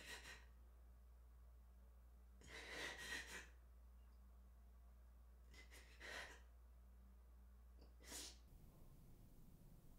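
Faint, shaky human breathing over a quiet low hum: four soft, breathy sighs or gasps, a few seconds apart, the second one the longest, at about a second.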